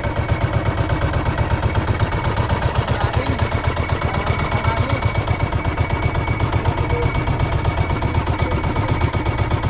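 Small outrigger fishing boat's engine running steadily under way, with a fast, even thumping beat.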